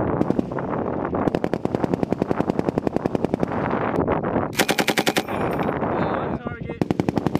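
M240B machine guns firing in bursts, more than one gun overlapping, with a long rapid burst early on. A nearer gun fires short, sharper bursts about midway and again near the end.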